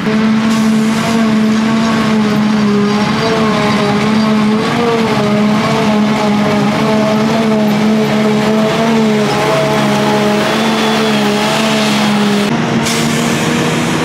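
Claas Jaguar self-propelled forage harvester running hard under load as it chops green haylage crop and blows it into a truck trailer: a loud, steady engine-and-cutterhead drone whose pitch wavers slightly.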